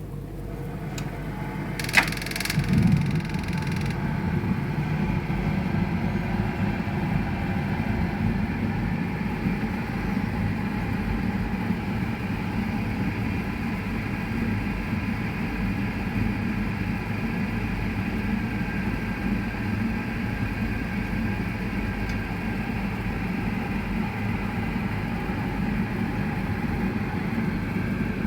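BAXI Main 5 14F gas boiler firing: a sharp click about two seconds in, then a steady low rumble with a hum. This is the gas-valve knock that the title reports.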